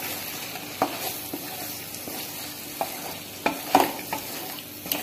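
Wooden spatula stirring and scraping against a non-stick pan as spice powders are mixed into frying masala with boiled eggs, over a steady sizzle of the oil. A few short sharp scrapes and taps come through, several together about three and a half seconds in.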